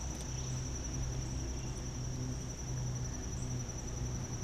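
A singing insect's continuous high-pitched trill, held at one steady pitch, over a low uneven rumble.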